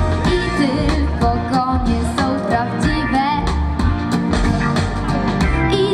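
Instrumental break in an upbeat backing track, with guitar and a steady low beat under a wavering lead melody, while the lead vocal rests.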